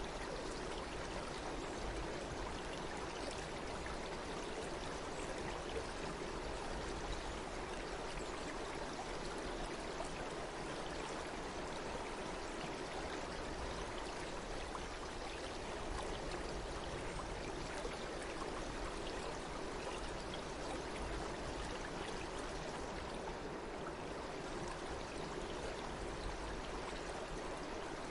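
Stream water flowing steadily, an even rushing with no change.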